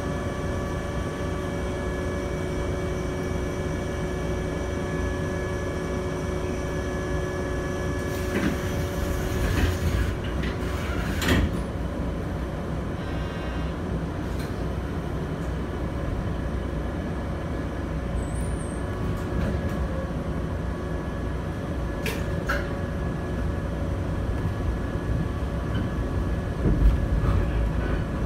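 Inside a JR West 123-series electric railcar at a standstill: the steady hum and whine of its onboard electrical equipment. About eight seconds in there is a hiss of air followed by a thud. Near the end a low clunk and rumble come as the car starts to move.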